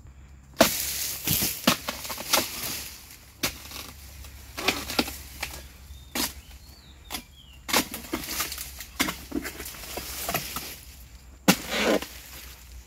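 Pole-mounted harvesting sickle hacking and pulling through oil palm frond stalks: about a dozen sharp cracking strokes, irregularly spaced, with the rustle of palm fronds.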